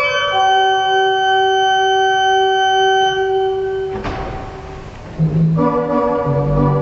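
Organ playing a slow, soft piece: a long chord held for about four seconds, released with a brief noise, then a new chord with low bass notes coming in about five seconds in.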